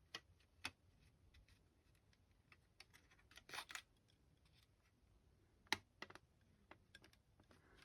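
Scattered faint clicks and taps of hard plastic model-kit parts being handled, as a model car hood is test-fitted on its body shell. A small cluster comes about halfway through and the sharpest click a little later, with near silence in between.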